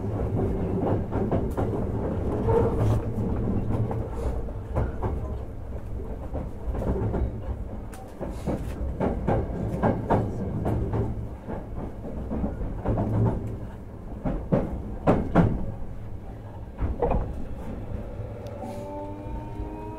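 Inside a Hankyu 1000 series car standing at a platform: a steady low hum with scattered knocks and clicks. About a second and a half before the end, the inverter whine of its permanent-magnet synchronous traction motors starts to rise in pitch as the train begins to pull away.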